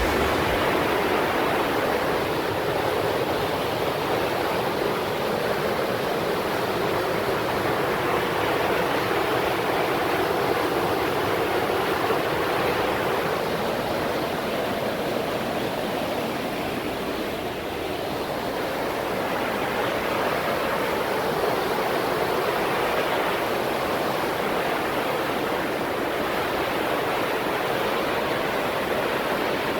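Steady rushing of a large waterfall: the River Tees pouring down the Cauldron Snout cascade.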